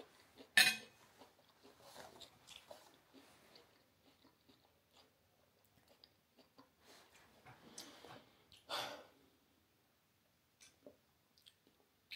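A person chewing food close to the microphone, with soft mouth clicks throughout, a sharp click just after the start and two breaths about eight and nine seconds in.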